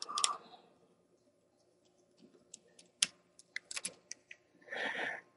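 Small screwdriver backing out the tiny screws that hold a laptop LCD panel to its metal mounting bracket: a click at the start, a quiet stretch, then scattered light metallic clicks and ticks from about two seconds in, and a short rustle near the end.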